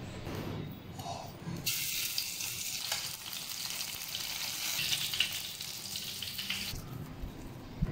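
Breadcrumb-coated tonguefish frying in hot oil in a pan: a steady sizzling hiss that starts about two seconds in and cuts off abruptly about a second before the end.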